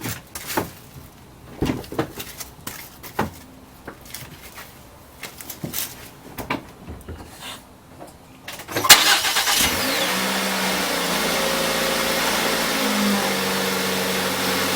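A few scattered knocks and clicks, then the 2008 Ford Escape's engine cranks and starts about nine seconds in and settles into a steady idle. The exhaust runs through a newly replaced flex pipe, and the idle sounds much quieter than with the old, leaking pipe.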